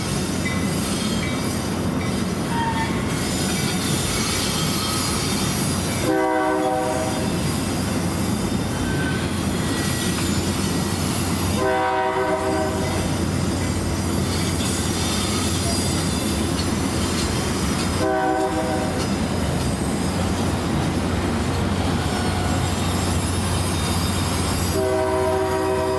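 Metra commuter train approaching with a steady rumble as its locomotive horn sounds four times, long, long, short, long: the standard grade-crossing signal. The last blast starts near the end and is still going.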